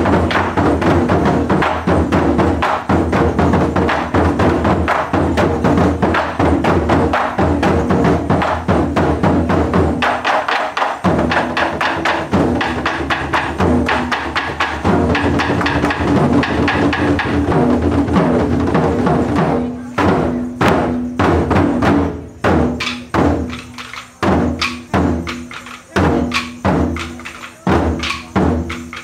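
Taiko drum ensemble playing: large barrel drums struck with sticks in fast, dense drumming, breaking near the end into separate strikes with short gaps between them.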